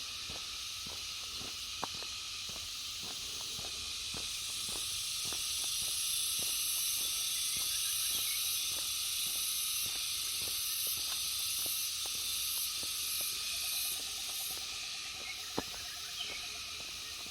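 Insects droning in a dense, steady high hiss that grows louder a few seconds in, its top edge pulsing for a while, over steady footsteps on a road.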